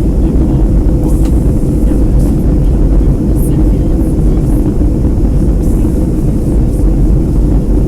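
Steady cabin roar of a Boeing 757 descending on approach, engine and airflow noise heard from inside the passenger cabin, with a faint steady hum in it.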